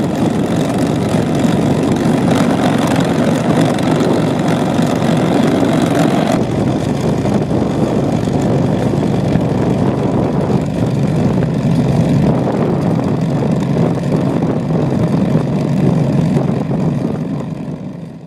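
A tractor engine running steadily under load, working a DIFCO tractor-mounted sod peat cutter. The sound changes character about six seconds in and fades out near the end.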